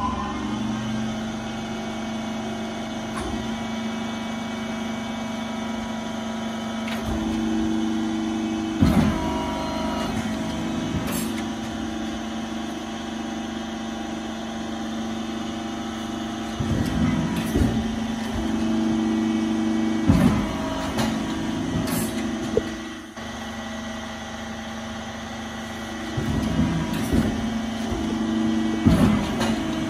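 Schön 6000 hydraulic beam cutting press running: a steady hum from its pump motor. Several times a higher note joins the hum with sharp knocks as the cutting beam is worked.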